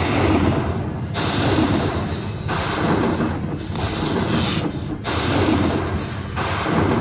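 Aristocrat Dollar Storm pokie machine's lightning-strike and thunder sound effects over a low rumble, one strike about every second and a bit, as each heart's credit value is collected into the win meter at the end of the hold-and-spin bonus.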